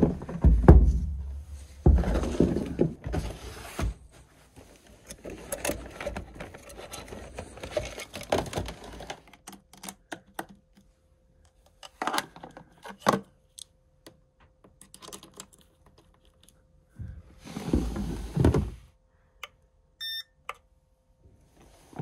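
Handling noises as a 12 V lithium battery and a small portable power inverter are moved and hooked up. A heavy thump comes right at the start, followed by bouts of knocking, scraping and rustling. A faint steady hum sets in about ten seconds in, and a short electronic beep sounds near the end.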